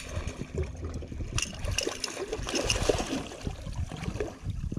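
Water splashing and sloshing in irregular bursts as a hooked bull redfish (red drum) thrashes at the surface beside the boat.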